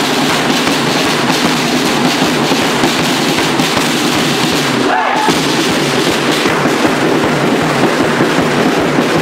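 A supporters' group beating marching drums with sticks in a fast, dense rhythm, over the voices and clapping of the crowd in the stand.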